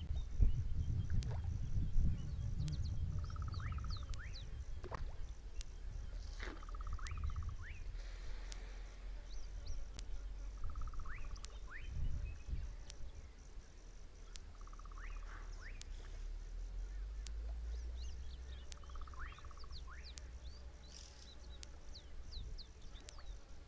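Outdoor wildlife ambience: a short buzzy trill repeats about every four seconds, with small rising chirps and faint clicks between. Under it runs a low wind rumble that eases after the first few seconds.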